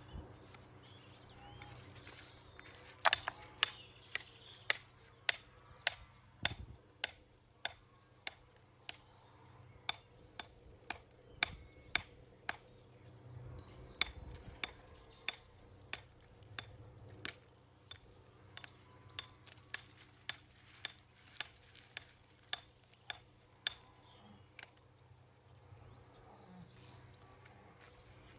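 A hammer striking stone in a long, steady series of sharp, clinking knocks, one to two a second, as stone is dressed for a dry stone wall.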